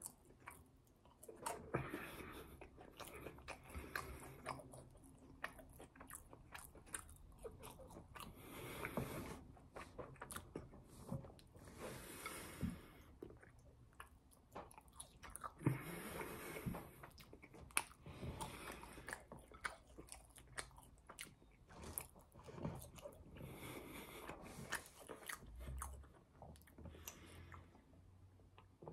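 Close-up mukbang chewing and biting of fast-food french fries: irregular soft crunches and wet mouth sounds as each fry is bitten and chewed, ending with a swig from a bottle.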